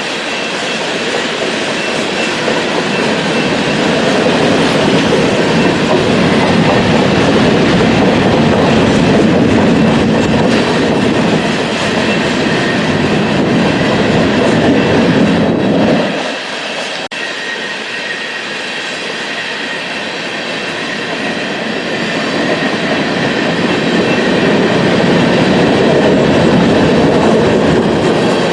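Freight train rolling past, its car wheels clattering over the rails in a steady, loud rumble. The sound drops suddenly about sixteen seconds in, then swells again.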